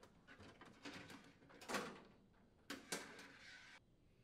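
Faint handling noises of a washer suspension rod and its spring being worked into the plastic outer tub: light rubbing and scraping with two louder scrapes, about a second apart, near the middle.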